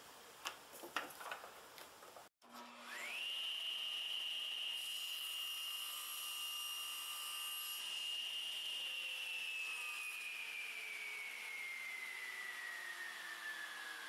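Table saw motor starting up: its whine climbs quickly to a steady high pitch, then falls slowly and evenly as the saw is switched off and the blade spins down.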